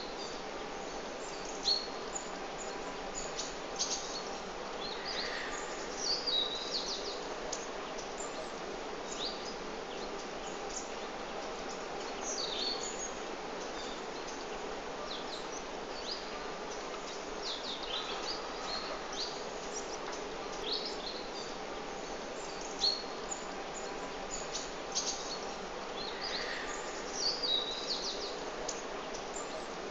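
Birds chirping: many short, high calls scattered throughout, some in quick clusters, over a steady background hiss with a faint low hum.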